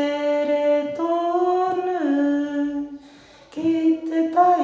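A single voice singing a Māori chant unaccompanied, holding long notes that step up and then down in pitch, with a pause for breath about three seconds in.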